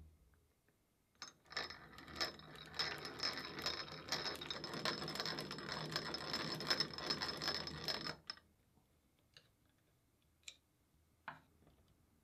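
Restored chain-driven two-speed hand drill being cranked: its gears and chain run with a rapid clicking rattle for about seven seconds, then stop, followed by a few single clicks.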